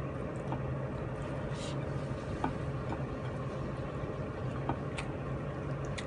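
Eating by hand from a plate: scattered faint light clicks and mouth sounds as fish is picked apart and chewed, over a steady low hum.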